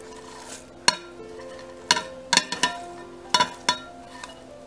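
A porcelain plate clinking against the rim of a glass mixing bowl as chopped vegetables are scraped off it: about half a dozen sharp, irregular clinks, each with a brief ring, over soft background music.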